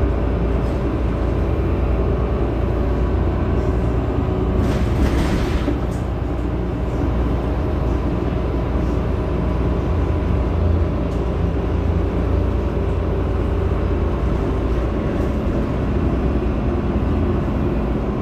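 Heuliez GX 327 city bus engine idling steadily at a stop, a low rumble with a steady hum above it. A short hiss lasts about a second, about five seconds in.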